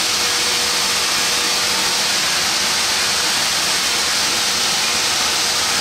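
Steam locomotive venting steam: a loud, steady hiss, with a faint steady tone underneath.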